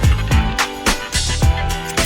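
Background music: an upbeat funk-pop track with a steady drum beat and bass, in an instrumental gap between sung lines.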